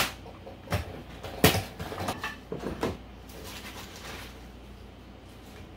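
Several short knocks and clatters as a plastic salad spinner is opened on a kitchen counter, the loudest about a second and a half in. The last few seconds are quieter.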